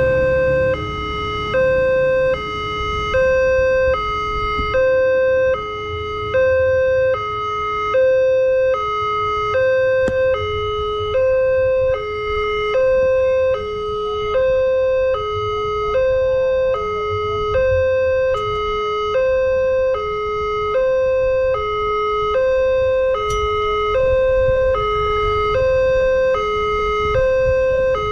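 Multec electronic level-crossing siren sounding its two-tone warning, a higher and a lower note alternating evenly, about one high-low cycle a second. This is the crossing's warning that a train is approaching. A low rumble runs underneath.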